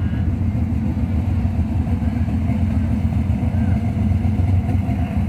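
Car engines running as cars drive slowly past one after another, a steady low rumble.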